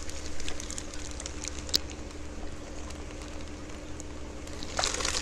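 Steady low hum and crackly hiss of a running aquarium setup, with one sharp click about a third of the way in. A louder crackling rustle starts near the end, from the plastic fish bag being handled.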